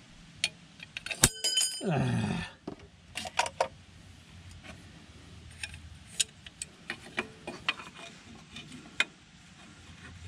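Scattered metallic clicks and clinks of hand tools and engine parts being handled, with one sharp ringing clink about a second in. A short low sound falling in pitch follows just after it.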